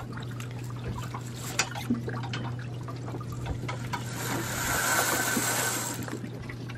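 Seawater sloshing and trickling around the hull and dinghy, with a swell of splashing that rises about four seconds in and fades two seconds later. Light clicks of rope and clips being handled, over a low steady hum.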